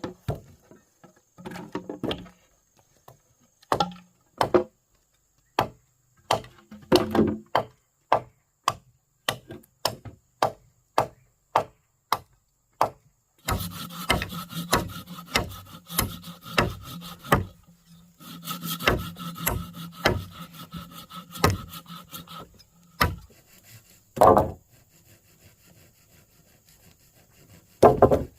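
Wood being worked by hand. First comes a run of separate sharp knocks on wood, about two a second, then two spells of sawing through wood lasting several seconds each, then a few last knocks.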